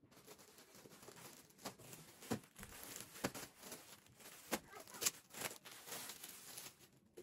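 Rustling and crinkling of something being handled, with a scatter of sharp clicks and knocks, the loudest about five seconds in.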